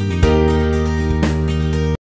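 Background music with a steady pulse, stopping abruptly at the very end.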